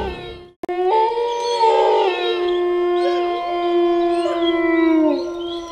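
Wolves howling in chorus: one long, steady howl held for about four seconds that dips in pitch near its end, with other howls rising and falling over it. It begins after a brief gap about half a second in.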